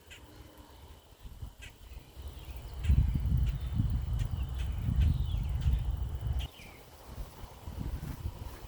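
Garden morning ambience: birds giving short repeated calls over a thin steady high tone. A low rumble, the loudest sound here, comes in about three seconds in and stops abruptly about three and a half seconds later.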